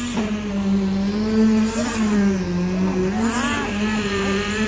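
Concrete poker vibrator running in wet concrete: a loud, steady motor hum whose pitch sags and recovers slightly as the vibrating head works in the mix.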